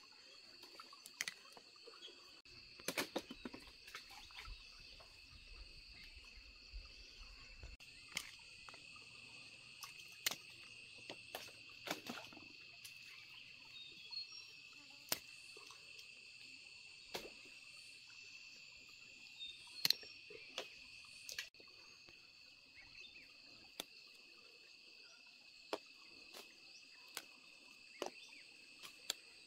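Steady chorus of insects with a constant high drone, broken by scattered sharp clicks and snaps as figs are picked off a tree trunk by hand. A low rumble is heard from about three to eight seconds in.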